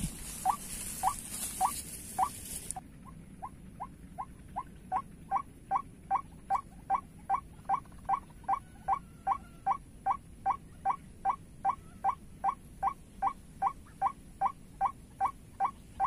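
White-breasted waterhen calling: a long, even run of short, rising 'ruak' notes, about two a second, quickening to about three a second as they grow louder. A loud high hiss behind them cuts off suddenly about three seconds in.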